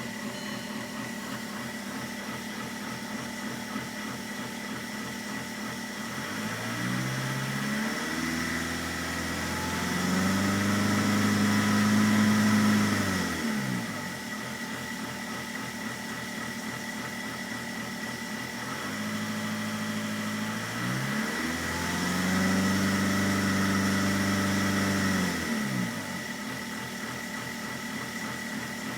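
Volkswagen 1.9 TDI ALH four-cylinder turbodiesel idling very roughly, revved up twice in steps, held a few seconds, then let fall back to idle each time. The timing belt is set one tooth advanced to correct badly retarded injection timing.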